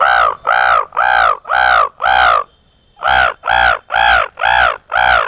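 A man imitating a crow's caw with his voice: ten short caws in two runs of five, about two a second, each caw rising and falling in pitch, with a brief pause between the runs.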